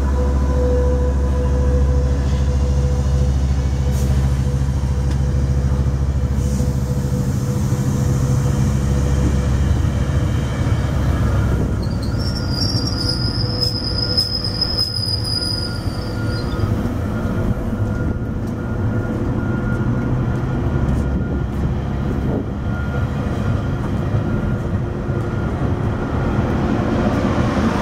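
Metrolink bilevel passenger coaches rolling past as a commuter train pulls out. For the first several seconds a diesel locomotive's engine drone is heard, and it fades. From about 12 to 16 seconds in, the wheels give a high squeal.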